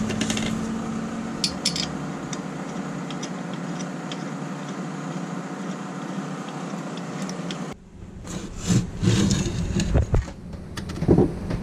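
A steady mechanical hum from a small motor or power tool, cutting off sharply about eight seconds in. It is followed by irregular knocks and rubbing.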